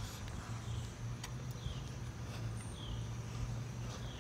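Faint outdoor ambience: a steady low rumble, with a small bird chirping short falling notes about once a second.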